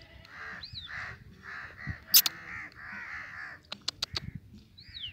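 A bird giving a run of about six harsh, crow-like cawing calls, with a couple of thin falling whistles and a few sharp clicks in between.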